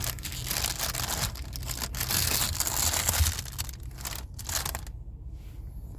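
Close, irregular rustling and crinkling, like material being handled right at the microphone, with a low rumble underneath; it dies down about five seconds in.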